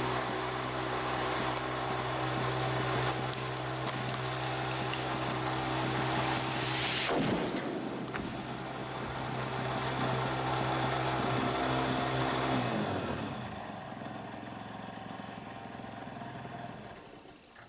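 An engine running at a steady speed, with a brief falling sweep about seven seconds in. Near thirteen seconds its pitch slides down as it slows, then a quieter hum carries on and fades near the end.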